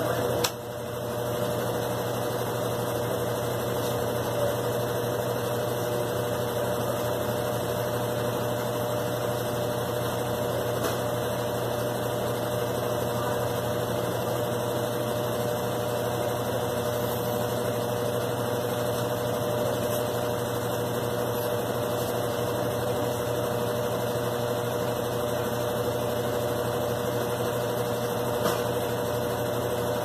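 Consul CWG12 top-load washing machine spinning its basket: a steady motor hum with a constant tone, with a brief dip about half a second in.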